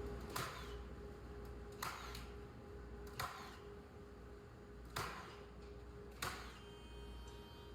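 Nails being driven into wooden pallet boards: five sharp single strikes, roughly one every second and a half, over a faint steady hum.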